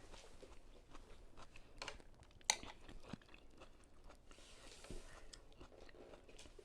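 Quiet eating sounds from a person eating vegetable pho: soft chewing with scattered small clicks. One sharper click comes about two and a half seconds in.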